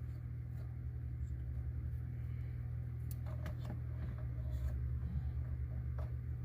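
Faint clicks and rustles of radio wiring connectors being handled and plugged in behind a car dash, a few light clicks about three to four seconds in and again near the end, over a steady low hum.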